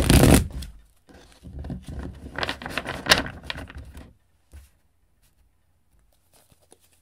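Tarot deck being riffle-shuffled by hand: a short burst of riffling right at the start, then a longer stretch of riffling from about one to four seconds in, followed by a few light taps as the deck is squared.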